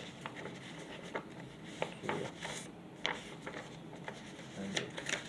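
Paper handling: light rustling with scattered soft clicks and taps as printed mini comics are shuffled and arranged.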